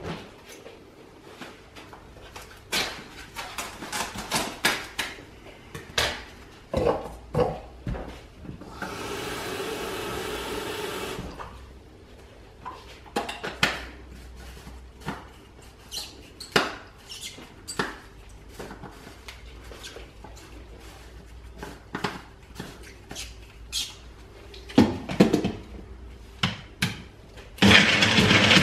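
Scattered clicks and knocks of kitchen items being handled, with a steady rush of running water for about two seconds a third of the way in. Near the end a small press-down personal blender starts up loud as its cup is pushed onto the base, and its motor runs steadily.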